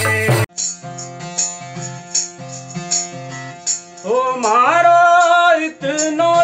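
Loud rattle-accompanied music cuts off about half a second in. A tambura then plucks a steady, repeating drone pattern with light ticks in the beat, and a man's voice starts singing a Malvi folk song over it about four seconds in.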